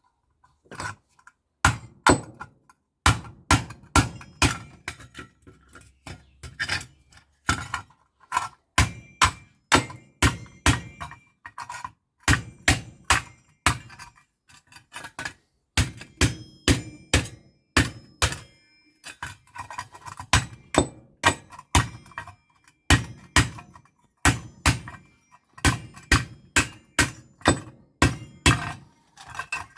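Repeated hammer blows knocking apart a microwave oven's magnetron, about two strikes a second with brief pauses between runs.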